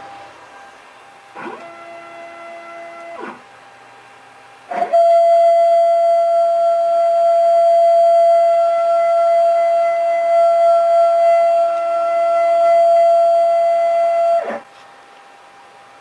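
CNC Shark HD Pro router machine running with a steady whine: a short run of about two seconds, then a louder, longer run of about ten seconds that stops abruptly near the end.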